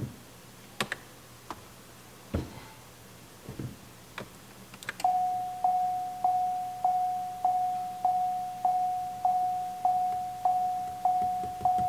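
Cadillac XTS interior warning chime dinging in an even repeating pattern, about three chimes every two seconds, starting about five seconds in. A few scattered clicks come before it.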